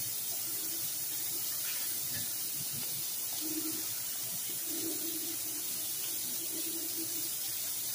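Ground beef with onions and green peppers sizzling in its juices in a skillet: a steady hiss.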